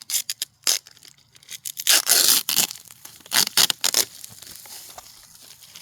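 Packaging being pulled and torn open by hand: a run of short, uneven ripping and scraping sounds, with the longest, loudest rips in the middle.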